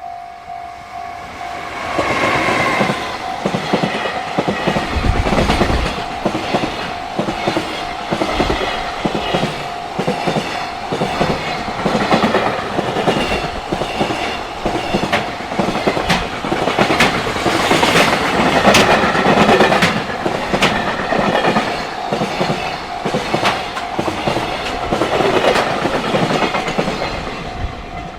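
A JR Freight train passes a level crossing at speed, its wheels clicking rhythmically over the rail joints as the wagons go by for over twenty seconds. Under it the crossing's electronic warning bell rings steadily, and it is heard on its own at the start and end.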